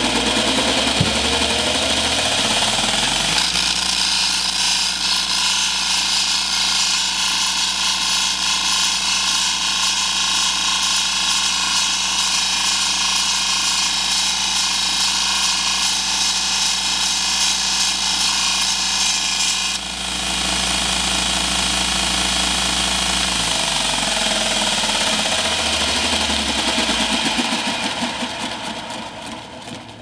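Electric belt sander running while the cut end of a copper pipe is held against the belt to take the burr off its outside edge. The motor comes up to speed over the first few seconds, runs steadily with a change in its note about two-thirds of the way through, then slows and stops near the end.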